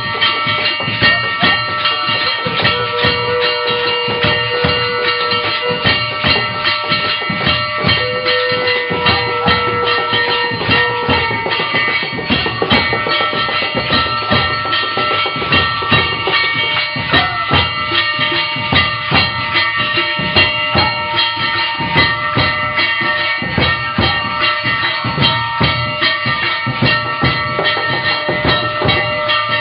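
Music with drums and percussion beating a dense, steady rhythm under many sustained ringing tones, with two long held notes in the first ten seconds.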